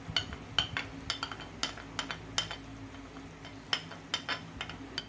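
A plastic spoon scraping ketchup out of a glass and tapping against it, giving a run of irregular short clinks and knocks. A steady low hum runs underneath.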